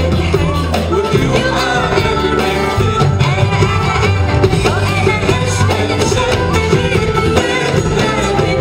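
Live Arabic pop band playing, with keyboards and electric guitar, while a woman sings lead into a microphone.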